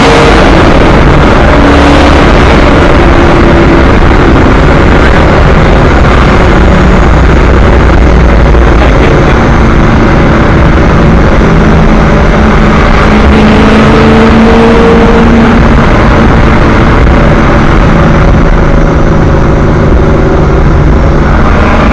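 A 1967 Chevy II's V8 engine running very loud, its pitch rising and falling as it is driven through its Muncie M22 four-speed.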